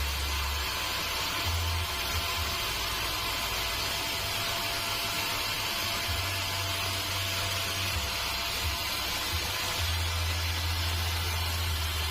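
Sawmill machinery running steadily, a constant mechanical hiss and hum with a low rumble that comes and goes every few seconds.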